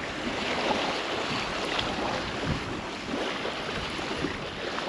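Steady wind blowing over the microphone outdoors, with small scattered crackles.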